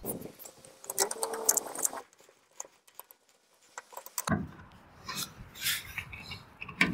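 Scraping and rubbing as a solar panel's mounting bracket is handled and fastened onto rusty sheet metal, in two spells with a quiet pause of about two seconds between them.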